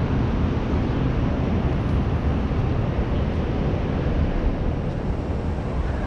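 Steady low rumbling noise of wind buffeting the microphone outdoors, even throughout with no distinct events.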